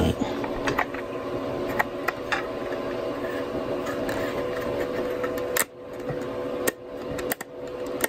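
Small clicks and taps of a 2.5-inch SSD being handled and pressed into a plastic external-drive enclosure, a few at a time with the sharpest right at the start, over a steady low hum.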